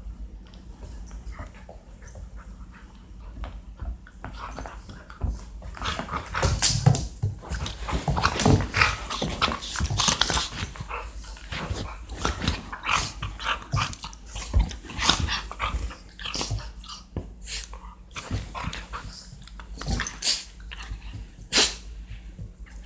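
Two Labrador dogs play-wrestling, growling and barking in short irregular bursts; fairly sparse at first, busier from about five seconds in, with two sharp louder barks near the end.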